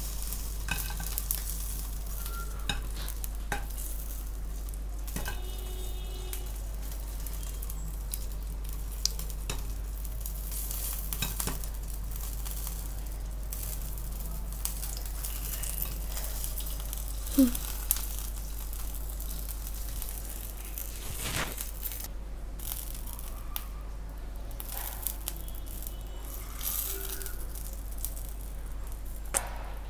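Hot oil sizzling under the glass lid of a pan of freshly popped popcorn, the burner just switched off, with scattered sharp clicks and ticks. The hiss is steady and eases slightly in the second half, and there is a louder click about 17 seconds in.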